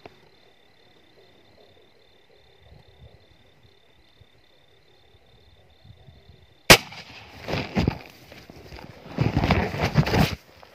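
Faint insect chirping at night, short even pulses about three a second. About two-thirds of the way in, a single sharp crack, then loud rustling and crunching of dry grass stalks and twigs as someone moves through them in a rush.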